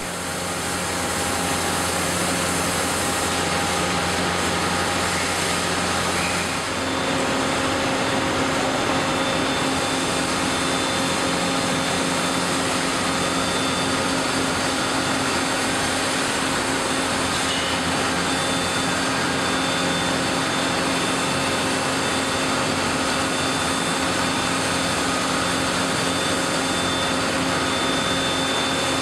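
Hot-coil spring winding machine running as a red-hot steel bar is wound onto its rotating mandrel: a steady mechanical drone with a low hum that shifts to a higher pitch about six and a half seconds in.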